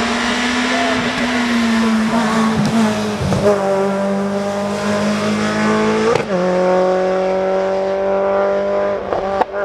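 Renault Clio Ragnotti rally car's four-cylinder engine at full throttle as it drives past and climbs away. Its note drops sharply about six seconds in as it shifts up a gear, then rises again.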